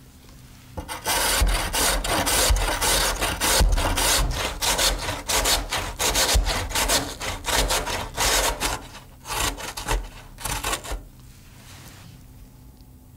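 Raw potato being grated by hand on a stainless-steel box grater, in quick repeated rasping strokes that start about a second in and stop near the end.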